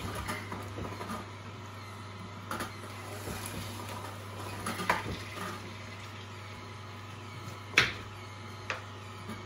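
Angel twin-gear juicer running with a steady low hum while pear pieces are pressed into its feed chute with a wooden plunger, with a few soft knocks. About three-quarters of the way in comes one sharp, loud knock of a knife cutting pear down onto a wooden chopping board, and a smaller one just after.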